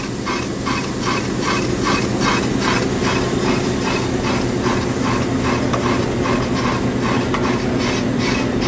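Ammco brake lathe running with a brake rotor spinning on it: a steady motor hum under a regular scraping tick about three times a second.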